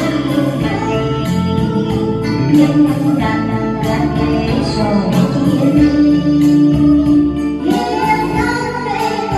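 A woman singing a Vietnamese song into a karaoke microphone over a backing music track.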